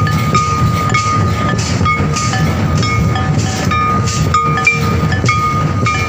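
Loud live folk dance music: a high piping wind instrument holds long notes and steps between them, over a dense drum beat with frequent strokes.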